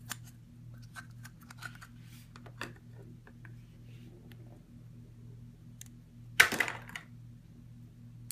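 Hands squeezing and peeling Play-Doh off a small toy, with scattered small clicks and rustles from the plastic egg halves and the dough. A louder crackling tear comes about six and a half seconds in as the dough is pulled apart.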